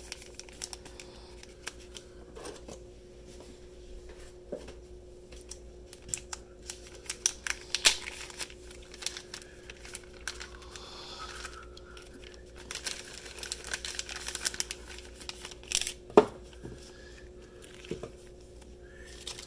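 Small plastic zip bags being handled and opened: crinkling and rustling of the plastic with scattered clicks and taps, loudest about eight seconds in and with a sharp click near the end, over a faint steady hum.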